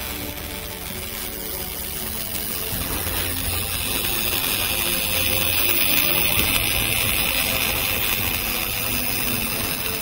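Welding arc of a MAUCOTOOLS C40 DUAL SYSTEM automatic bore welder: a steady hiss as the torch builds up weld inside a worn bore, getting louder about three seconds in.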